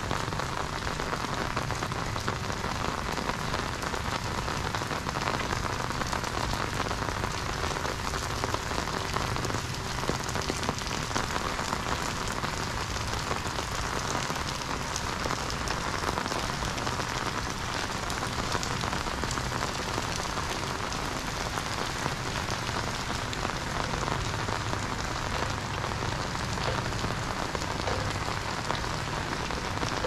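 Steady rain falling on a wet paved road and on an umbrella held overhead: an even, unbroken hiss of many fine drops.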